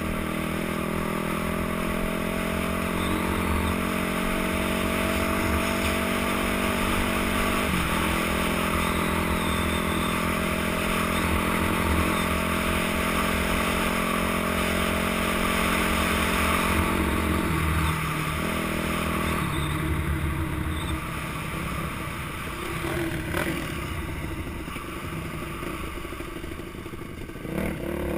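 Dirt bike engine running at steady revs under a constant rush of wind and ground noise. The engine note breaks briefly about eight seconds in. It shifts again around eighteen seconds, after which it runs lower and rougher and a little quieter as the bike slows.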